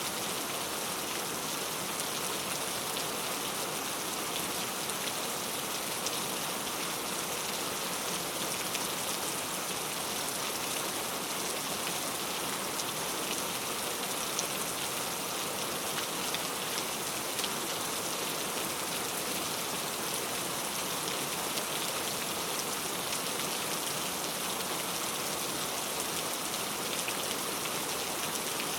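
Steady rain falling on a surface, an even hiss with scattered fine drop ticks.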